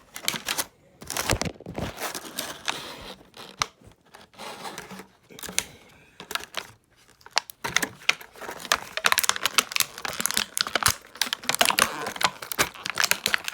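Plastic toy packaging crinkling and tearing as it is opened, with a steady scatter of small clicks and rustles that grows busier in the second half.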